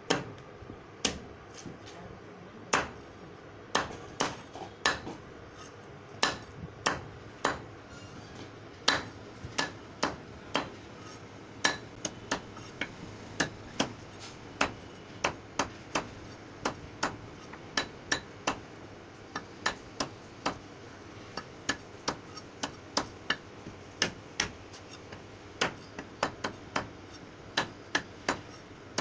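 A large knife chopping whole raw green mangoes, stone and all, into chunks on a round wooden chopping block. Each stroke is a sharp chop of the blade through the fruit into the wood, coming at an uneven pace of roughly one to two a second.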